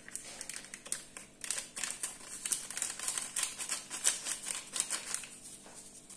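A sachet of baking powder being shaken and tapped out over a bowl of dough: a fast run of crinkly rustling ticks that stops about five seconds in.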